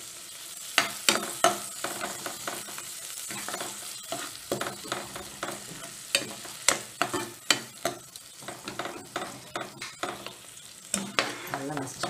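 A steel ladle scraping and knocking against a non-stick kadai as potato masala is stirred and mashed, with irregular sharp clicks one or two a second. Under it the onion and potato mixture sizzles steadily in the oil.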